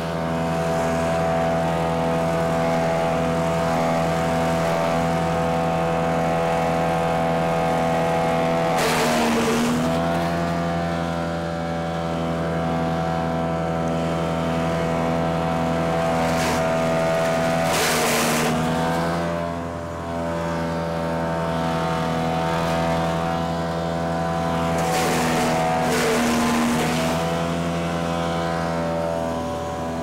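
Big Bear BBC72 wood chipper's V-twin engine running steadily while oak limbs are fed through it. Three times, roughly eight seconds apart, a loud burst of chipping cuts in for one to two seconds, and the engine's pitch dips under the load and then recovers.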